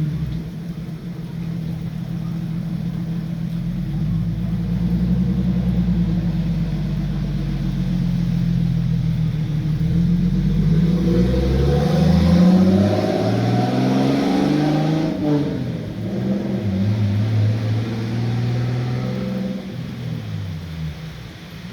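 A motor vehicle engine running, its pitch climbing to a peak just past halfway and then falling away in steps.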